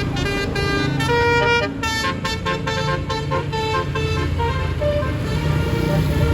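Basuri 'telolet' multi-tone bus horn playing a melody: a held note, then a quick run of short notes, then a longer note, over the low rumble of the bus engine.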